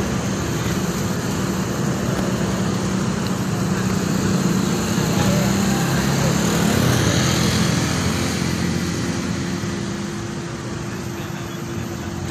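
Heavy diesel engines of road-works machinery, an excavator and a dump truck, running steadily with a low hum, a little louder about halfway through.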